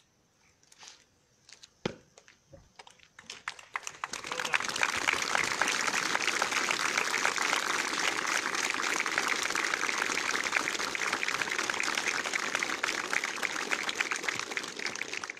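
Applause from a large group of soldiers clapping, starting about four seconds in after a quiet pause with a few faint clicks, holding steady and easing off near the end.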